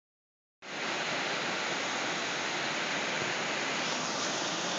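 Waterfall rushing steadily, a constant even hiss of falling water that cuts in about half a second in.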